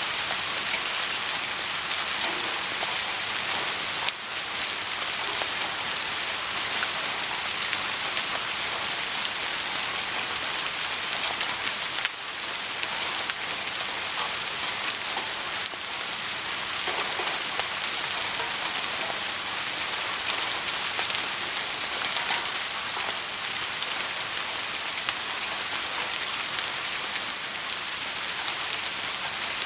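Soft rain falling steadily: an even hiss of many fine drops, with small scattered drop ticks and no thunder.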